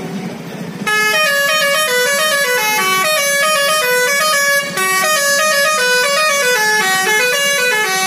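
Tour bus's telolet horn, a set of air horns sounding in quick succession to play a loud stepping melody. It starts about a second in and has a brief break a little past halfway.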